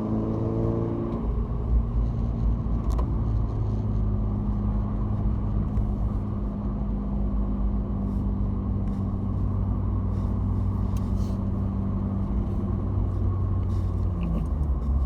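Mk6 Volkswagen Golf GTI's turbocharged 2.0-litre four-cylinder, with an aftermarket downpipe and catback exhaust, running at a steady engine speed under way, heard inside the cabin as a steady drone over a low rumble; the pitch dips and climbs again near the end. The owner hears a hollow, almost wind-tunnel sound around 4,000 rpm and is unsure whether it is just the downpipe or a fault.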